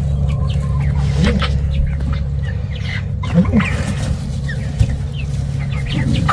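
Eight-week-old chickens making scattered short peeps and a few soft low clucks over a steady low hum.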